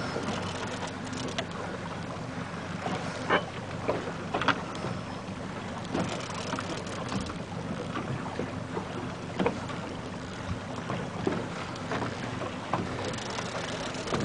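A boat's motor running at a steady low speed, a low even hum, with wind and water noise over it. Sharp knocks come now and then.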